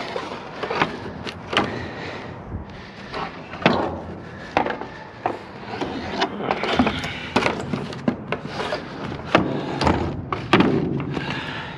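Pieces of scrap being shifted and pulled out of a dumpster: a dozen or more irregular knocks and clanks, with scraping between them.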